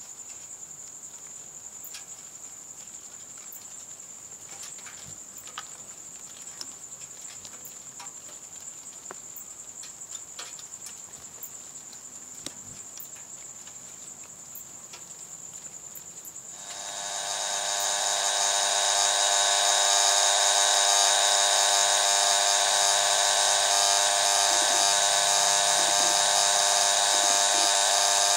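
A cricket trills steadily at a high pitch, with faint scattered ticks. About sixteen seconds in, a much louder steady buzz with many overtones swells up over a second or so and holds.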